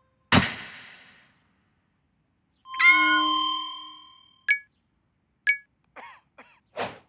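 Cartoon sound effects. A sharp hit comes first, then a ringing metallic clang that dies away over about a second. Two short high dings follow about a second apart, then two quick sliding chirps and a brief burst near the end.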